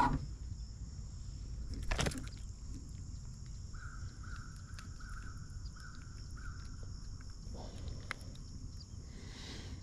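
Steady high drone of insects in the marsh. A bird calls five times in a row, evenly spaced, in the middle. A single sharp knock about two seconds in and a few small clicks near the end come from the fish being unhooked in the boat.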